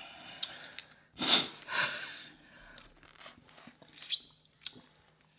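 A person takes two sharp, breathy breaths about a second in, reacting to the burn of a very spicy seafood boil, followed by faint scattered clicks and smacks of eating.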